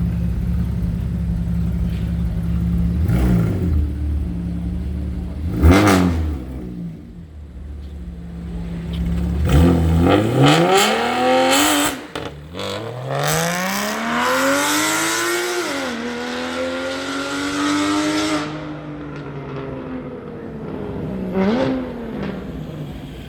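Porsche 911 Carrera S (991.1) 3.8-litre flat-six, loud, holding a steady note with two short blips of the throttle. Then it revs up in two long rising sweeps; the second drops sharply to a lower, steady pitch before falling back, with one more quick blip near the end.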